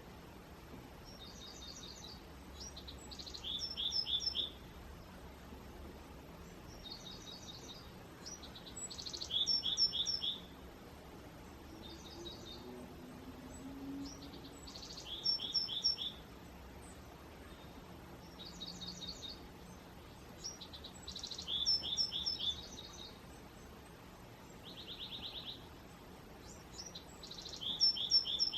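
A small songbird singing the same short song over and over, each song about two seconds long: a few high notes followed by quick trilled notes, repeated about every six seconds against a steady outdoor hiss.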